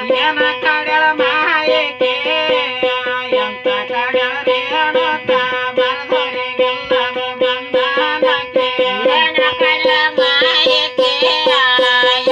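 A chaudike, the one-string plucked drone instrument of Yellamma devotees, struck in a quick, even rhythm on one held pitch, with voices singing a Yellamma devotional song (chaudike pada) over it.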